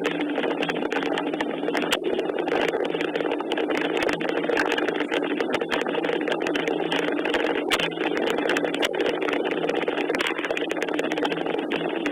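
Steady rain, with many irregular drops clicking sharply on a nearby surface, over a low steady hum.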